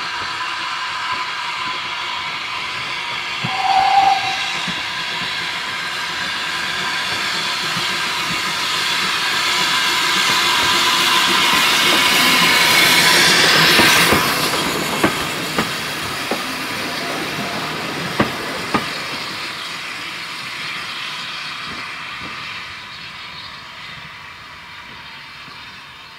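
GWR Avonside 0-4-0 saddle tank No. 1340 'Trojan' hissing steam as it runs up and passes with a carriage. The sound grows louder to the pass about halfway through, then fades. There is a short whistle toot about four seconds in, and sharp clicks of wheels over rail joints as the carriage goes by.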